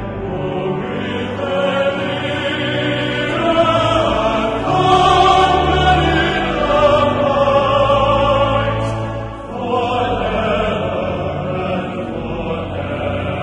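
A cathedral choir singing a hymn, with notes held in harmony. The sound swells in the middle and breaks briefly between phrases about nine and a half seconds in.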